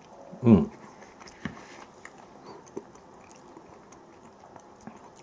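A person chewing a mouthful of canned mackerel, with quiet mouth clicks and smacks. About half a second in comes a short hum with a falling pitch, the loudest sound.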